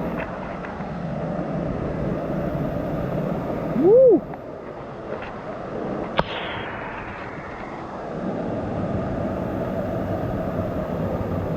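Steady rush of falling water from the waterfalls in the gorge. A person's short "woo!" comes about four seconds in, and a single sharp knock about two seconds later.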